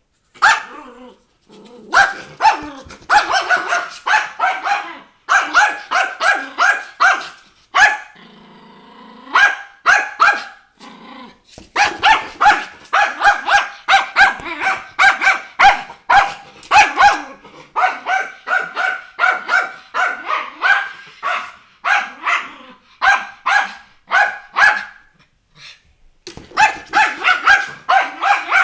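Miniature schnauzer barking in rapid strings, about three or four barks a second, with a spell of low growling about eight seconds in. The barking breaks off briefly near the start and again shortly before the end.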